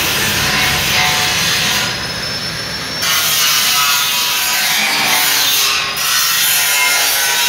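A power tool running loud and rasping, easing off briefly about two seconds in and again just before six seconds.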